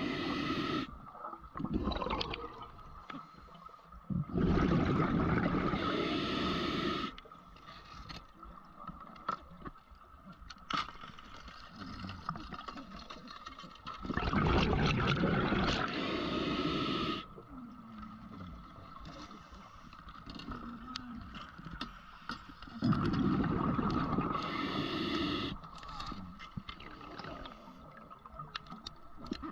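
A scuba diver's breathing heard underwater: three loud rushes of exhaled bubbles from the regulator, each about three seconds long and roughly nine seconds apart. Quieter stretches with faint crackling clicks lie between them.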